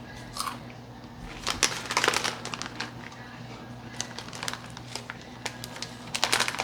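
Eating a potato chip: brittle crunching and the crinkle of the chip bag, in two clusters of quick crackles about a second and a half in and again near the end, over a faint steady hum.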